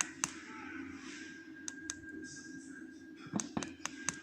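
Light, sharp metallic clicks and taps of small lock parts and tools being handled while a pin-tumbler lock cylinder is taken apart, scattered in small clusters over a faint steady hum.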